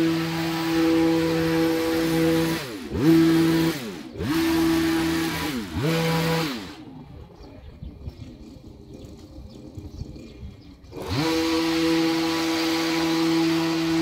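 Hedge trimmer running at a steady pitch, slowing and picking back up three times in the first six seconds. It stops about seven seconds in, then starts again about four seconds later, rising to speed and running steadily.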